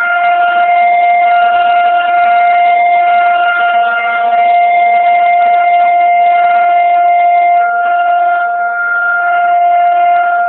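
Federal Signal 2001-DC outdoor warning siren sounding its steady alert tone: one loud, unchanging pitch with no rise or fall, swelling and dipping slightly in level.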